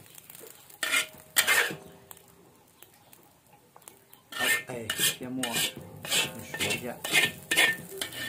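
Metal spatula scraping and knocking against a large iron wok as the last fried rice is scooped out. A couple of strikes about a second in, then a quick run of scrapes and clanks from about four seconds in until near the end, some leaving a short metallic ring.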